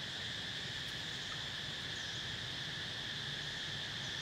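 Steady insect chorus in the forest: a continuous high drone in two pitches, unbroken and even.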